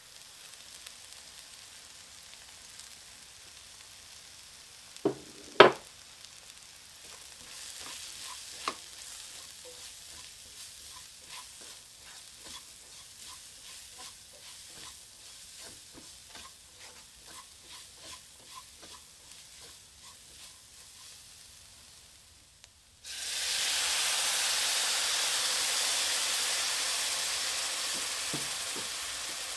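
Onions and spices sizzling in a hot stainless-steel wok, stirred with a silicone spatula in a steady run of scrapes, with two sharp knocks about five seconds in. A little past twenty seconds, hot water hits the hot pan and a loud hiss of steam starts suddenly, then slowly fades.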